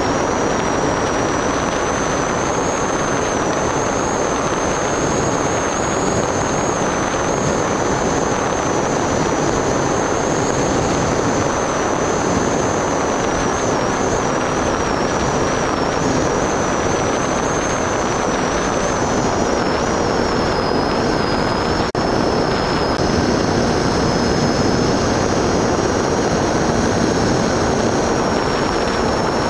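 Motor and propeller of an FPV model aircraft in flight, heard through its onboard camera: a high whine that wavers slightly in pitch over a steady rush of air.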